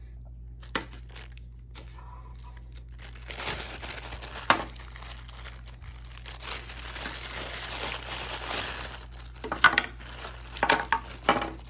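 Plastic packaging crinkling and rustling as small accessories are handled and unwrapped, with a few sharp clicks and knocks of parts set down, several of them near the end.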